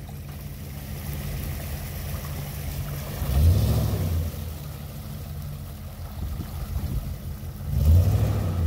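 Ford F-150 pickup's engine running low as the truck creeps through a muddy puddle, its tyres sloshing through the water. The engine note swells louder twice, about three and a half seconds in and again near the end.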